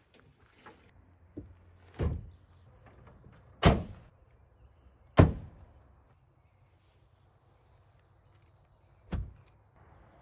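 Ford F-150 pickup's tailgate, tonneau cover and doors being shut: three hard slams about a second and a half apart, then a fourth a few seconds later.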